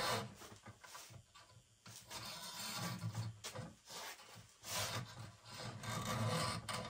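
Wire snare cable being pulled through loops and rubbed along a wooden pole: irregular scraping and rubbing strokes.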